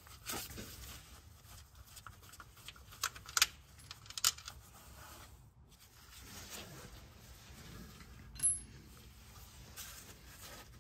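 Scattered sharp metallic clicks and clinks of a Torx socket and hand tools working the screws out of a transmission oil pan. A few louder clicks come about three to four seconds in and one more near eight seconds.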